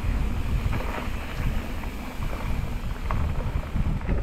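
Wind buffeting a GoPro's microphone during a mountain-bike ride on a dirt trail: an uneven low rumble, with a few faint clicks from the bike.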